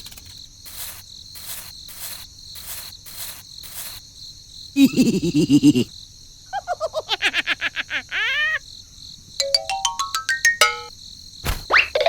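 Crickets chirping steadily, overlaid with a string of cartoon-like sound effects: a short burst of rapid low pulses about five seconds in, a run of swooping chirps, and a rising scale of beeps near the end.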